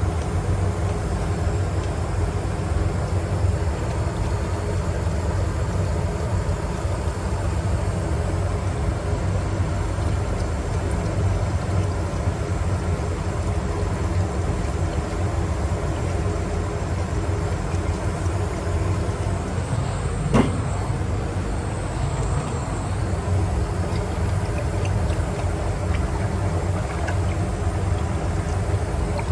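Steady low rumble of a running machine with a faint hum, and one sharp click about twenty seconds in.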